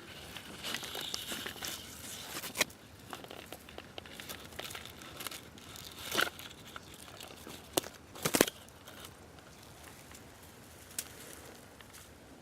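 Close rustling and crinkling, broken by a few sharp snaps; the loudest pair of snaps comes about eight seconds in.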